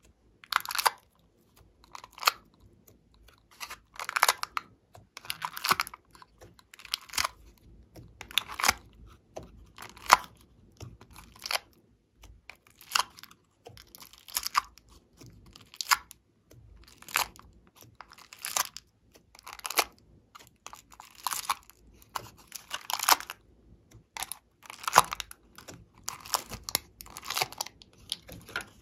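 Hands pressing slime and soft clay out of thin plastic cell trays: a string of short, crunchy, crinkling squishes, about one a second at uneven spacing, some louder than others.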